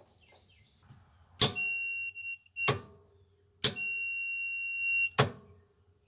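Multimeter continuity beeper sounding twice, a steady high beep of about a second each, as a hydraulic-pump solenoid is switched on and off. Each beep starts and stops with a sharp click of the solenoid engaging and releasing. The beep shows the solenoid's contacts closing and passing power: a working solenoid.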